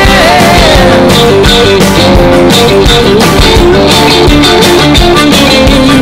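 Loud rock music with guitar, an instrumental stretch of the song with no singing.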